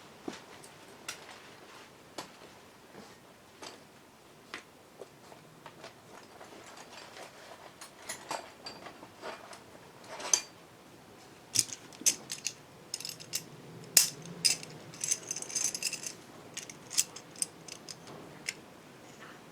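Metal hand tools and engine parts clinking and clicking while a motorcycle engine is being taken apart. The knocks are sparse at first, come thicker in the second half, and there is a short rattle about three-quarters of the way in.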